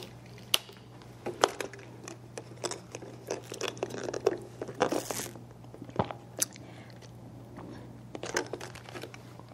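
Thin plastic water bottle crinkling and crackling in the hands as it is handled and drunk from: an irregular run of sharp crackles and clicks.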